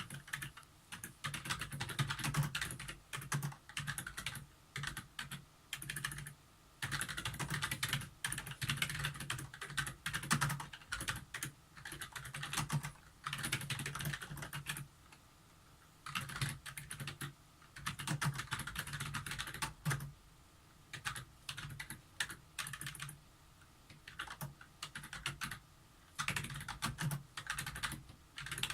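Keys of an Elecom TK-FDM063TBK wireless keyboard being typed on at a steady, unhurried pace, in runs of several seconds broken by short pauses.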